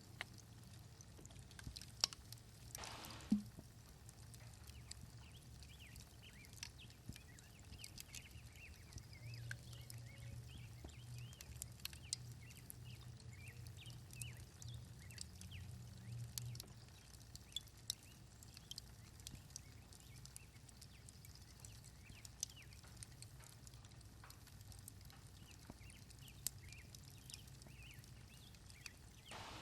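Faint outdoor ambience: small birds chirping, with scattered sharp clicks and taps and a low steady rumble underneath.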